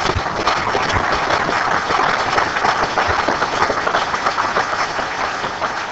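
Audience applauding, starting abruptly and tailing off slightly near the end.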